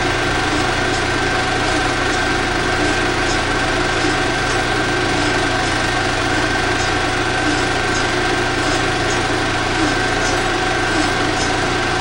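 16mm film projector running steadily: an even mechanical hum with a constant high whine.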